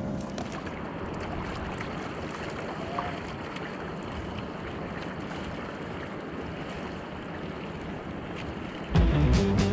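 Steady wind and sea noise on the microphone of a fishing kayak at sea. About nine seconds in, loud music with a beat comes in suddenly.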